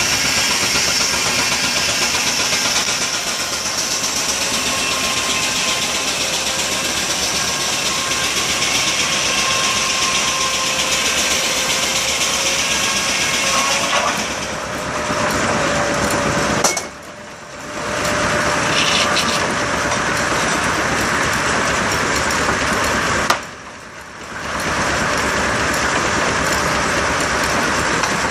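Portable steam engine belt-driving a circular sawmill: a steady mechanical din of the running engine and mill machinery with a steady high whine. Twice in the second half the noise drops away sharply for about a second.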